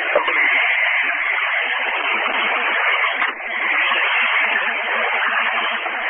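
Heavy pouring rain on a snowplow truck, heard over a two-way radio: a steady, thin-sounding rush of rain noise with a brief dip a little past halfway.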